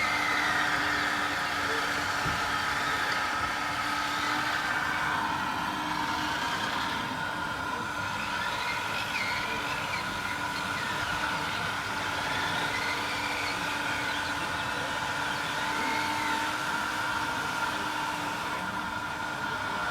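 RC model construction vehicles running, a steady mechanical whine with several held tones.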